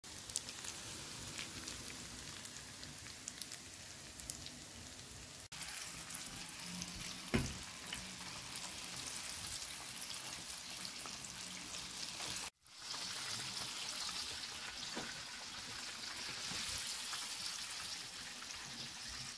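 Food sizzling and crackling in a hot frying pan: butter melting, then breaded salmon fillets frying in oil. There is one knock about seven seconds in, and the sizzle breaks off briefly twice.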